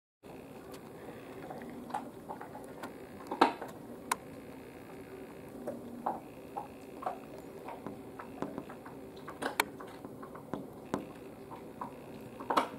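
Irregular small clicks and taps over a steady low hum, with a sharper knock about three and a half seconds in and another near the end.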